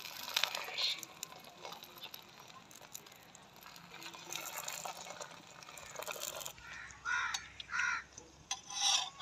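Metal tongs clicking against a paratha on a hot iron tawa, then a few loud bird calls near the end.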